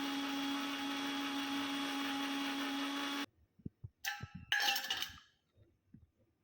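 Electric mixer grinder running steadily, grinding coriander and mint leaves into a paste, then switched off and cutting out suddenly about three seconds in. A few metal clinks and clanks follow.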